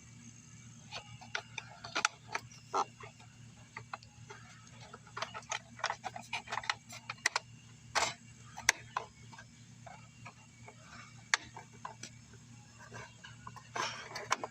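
Scattered clicks and light knocks of hands handling parts on a small lawn mower engine, irregular and some sharp, over a steady low hum.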